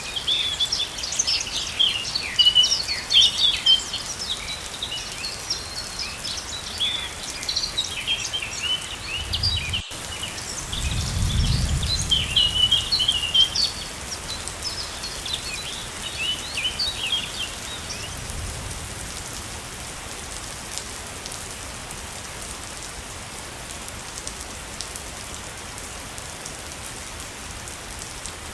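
Steady rushing of a waterfall, with many small birds chirping rapidly over it until about eighteen seconds in, after which the water goes on alone. A low rumble swells briefly about ten to thirteen seconds in.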